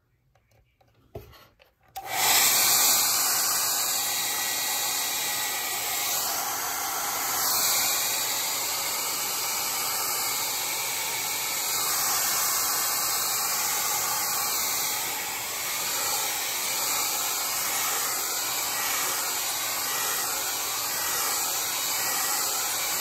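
Handheld 1875-watt hair dryer switched on about two seconds in and blowing steadily, aimed at a heat detector to trip its rate-of-rise sensor.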